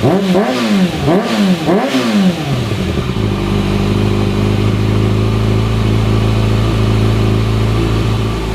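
Motorcycle engine breathing through a Yoshimura aftermarket exhaust, revved in quick repeated blips, about two a second, for two to three seconds, then dropping back to a steady idle for the rest.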